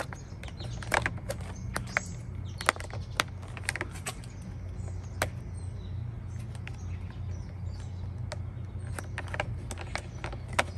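Irregular clicks, rubs and squeaks of a soaped foam Grip Puppy cover being slid and worked onto a motorcycle's handlebar grip by hand, over a steady low hum.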